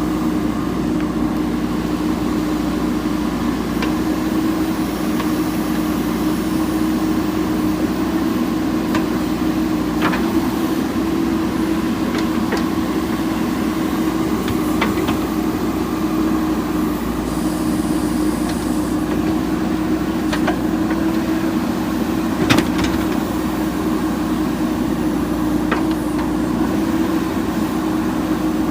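Diesel engine of a working JCB 3DX backhoe loader, running steadily with a constant hum. Several short, sharp knocks sound through it, the loudest about two-thirds of the way through.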